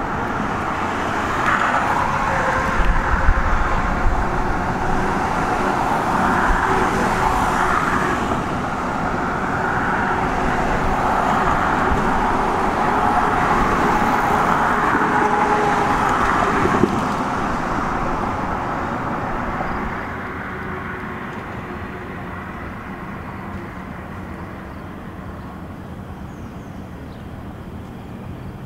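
Steady rushing vehicle noise, eased off a little about two-thirds of the way through and fading further toward the end.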